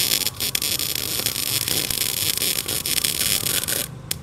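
Tenya Smart MIG 265 MIG welding arc at 135 A and 18 V, crackling steadily as a bead is run on thin box-section steel. It breaks off briefly a couple of times in the first second and stops near the end.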